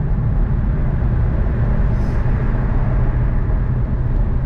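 Steady low rumble of a car driving through a road tunnel, engine and tyre noise heard from inside the cabin.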